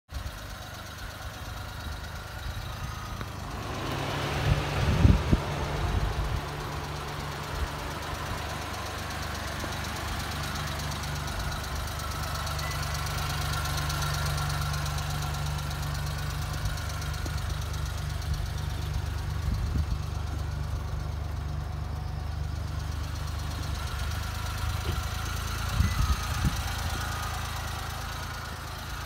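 Suzuki Carry DD51B kei truck's small three-cylinder engine idling steadily. The note fills out about four seconds in and settles back after about seventeen seconds. A few sharp knocks come around five seconds in and again near the end.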